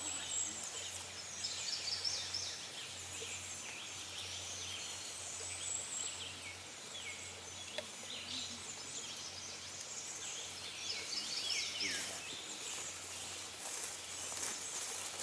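Songbirds singing: many short, high chirps and trills from several birds, over faint steady background noise.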